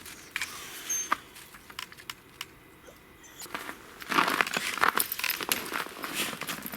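Footsteps crunching in snow: scattered crunches at first, quieter for a moment, then denser and louder crunching from about four seconds in.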